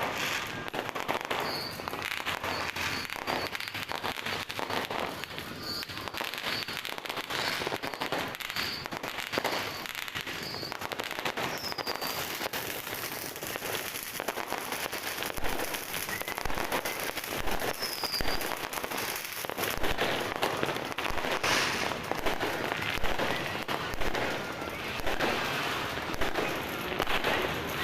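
New Year fireworks and firecrackers going off without a break: a dense crackle of many pops and bangs, with short high whistles now and then. It gets busier and a little louder in the last several seconds.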